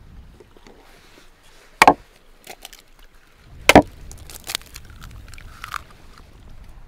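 Eggs knocked against the rim of a wooden bowl to crack them: two sharp knocks about two and four seconds in, then lighter clicks and taps of the shells.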